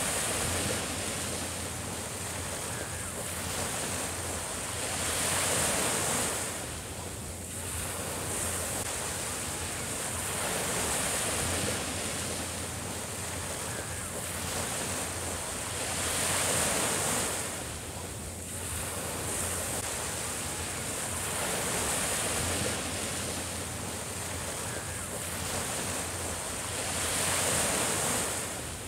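Small waves breaking and washing up a sandy beach, the surf swelling and easing about every five to six seconds.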